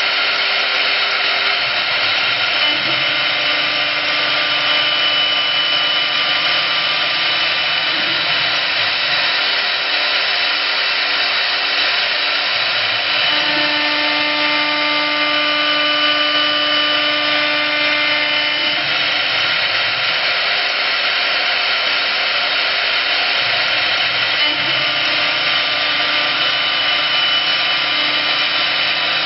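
A CNC wood lathe's high-speed engraving spindle routing into a turning wooden baluster: a steady, loud machine whine mixed with cutting noise. Its tones shift every few seconds, with a different set clearly heard in the middle stretch.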